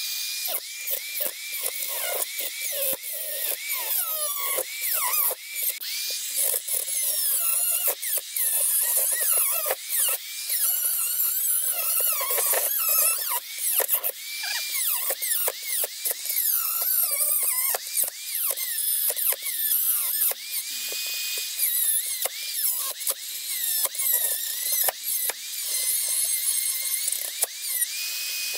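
High-speed electric rotary tool with a small cutoff wheel cutting out the centre of an old suspension bushing. Its high whine sags in pitch as the wheel bites under load and recovers between cuts, over constant scraping chatter.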